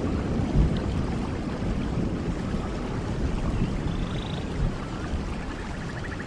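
Steady heavy rain with a low rumble, a few faint high chirping calls in its second half.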